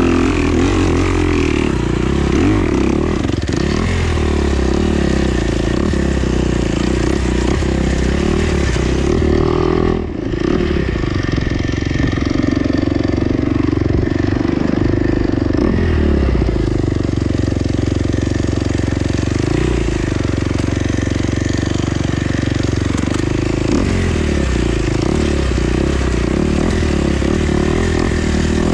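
Dirt bike engine, the Kawasaki KX250X's single-cylinder four-stroke, running continuously under way on a trail. The revs rise and fall with the riding, with a brief drop about ten seconds in.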